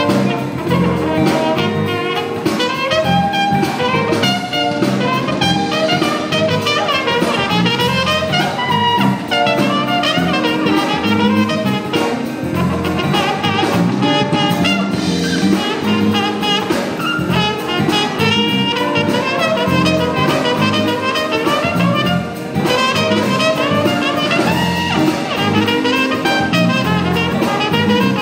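Live jazz band playing an instrumental passage: a brass horn carrying the melody over drum kit, bass, electric guitar and keyboard.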